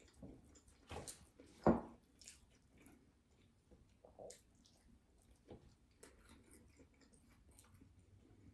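Faint chewing and mouth noises of someone eating hot-sauced nuggets fast, with scattered small clicks and one louder short thump about a second and a half in.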